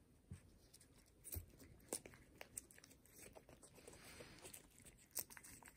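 Faint, irregular wet clicks of a cat licking a paste treat from a foil pouch held to its mouth, with light crinkling of the pouch.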